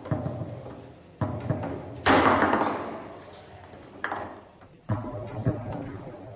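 Foosball table in play: sharp knocks of the ball and the rods and figures striking, with a much louder burst of noise about two seconds in that fades away over a second or two.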